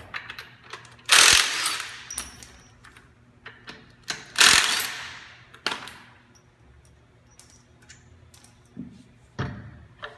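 Impact wrench with a 3/4 inch socket firing in two short bursts, loosening the bolts of the two belt idlers, followed by a few light metal clinks.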